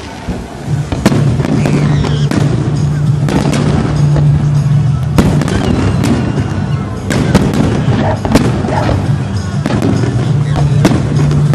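Fireworks exploding with many sharp bangs and crackles in quick succession, over background music.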